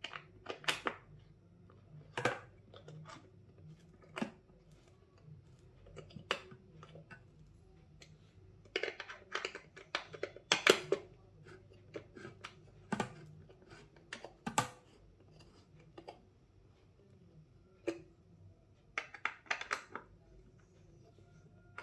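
Irregular metallic clicks and taps of an Allen key working the bolts that fix an office chair's steel tilt-mechanism plate to the seat, as the bolts are tightened. The strongest clicks come about 2, 6, 9 to 11, 13, 14.5 and 19 seconds in.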